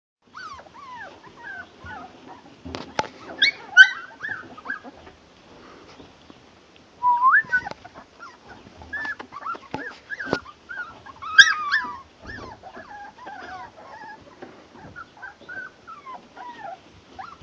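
A litter of puppies whimpering and yipping: many short, high squeals overlapping one another, with louder yelps about four seconds in and again past the middle.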